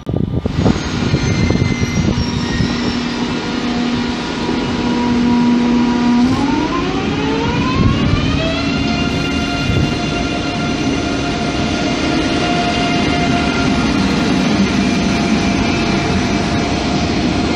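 ICE high-speed electric train pulling out, its traction drive whining with a stack of tones over rolling noise. About six seconds in the tones glide smoothly upward for a couple of seconds as the train accelerates, then hold steady at the higher pitch.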